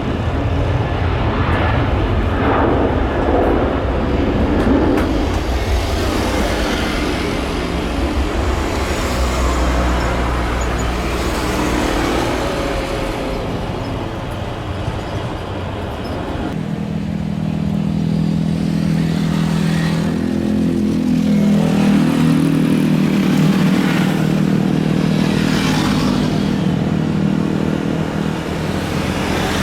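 Wind rumbling on the microphone with vehicle noise, then after a cut about halfway through, the jet engines of a Boeing 737-800 airliner on landing approach, a steady drone that wavers slightly in pitch.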